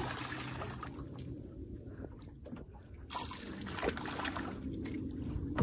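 Water splashing as a hooked mahi-mahi thrashes at the surface beside the boat, in spells at the start and again about three seconds in.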